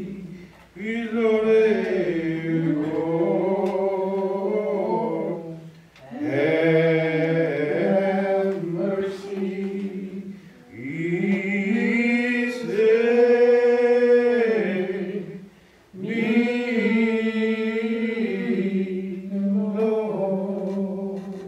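A man singing a slow hymn unaccompanied, in four long phrases with drawn-out held notes.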